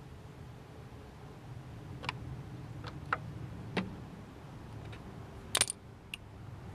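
Scattered sharp clicks and taps of hand tools and parts being handled on a BMW E39's engine, about five in all, the loudest a quick double click near the end, over a faint low hum.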